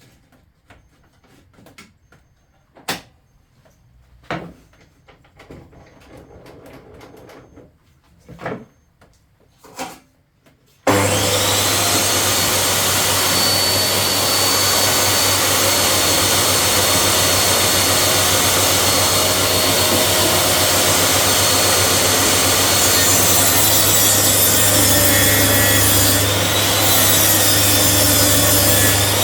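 A few wooden knocks and clatters, then about eleven seconds in an electric woodworking power tool switches on with a short rising whine and runs steadily and loudly.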